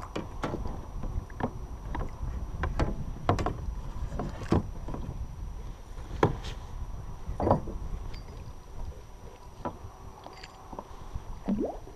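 A kayak paddle knocking against the kayak's hull as it is handled: a string of irregular sharp knocks and clunks over low wind and water noise. A short rising squeak comes near the end.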